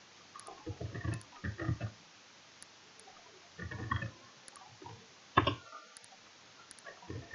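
Computer keyboard typing in two short bursts, then a single sharp mouse click about five seconds in, the loudest sound.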